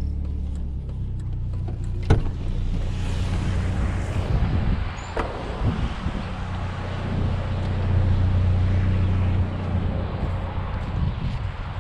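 GMC Sonoma pickup's engine running, with a single sharp knock about two seconds in. Road and wind noise then rise as the truck drives, and the engine hum swells for a moment around eight seconds in.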